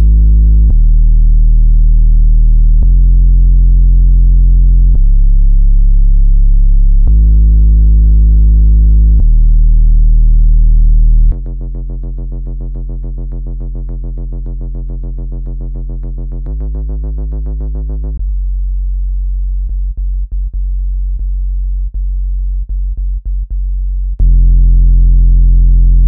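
Synthesized speaker water-ejection tones: a loud, deep hum that steps to a new pitch every two seconds or so. About halfway through it gives way to a quieter, buzzier tone, then to a low tone broken by brief dropouts, before the loud deep hum returns near the end.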